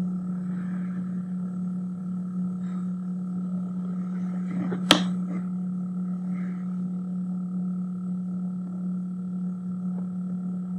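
A steady low hum with a fainter high tone above it, over faint scratching of a pencil on paper; a single sharp click about five seconds in.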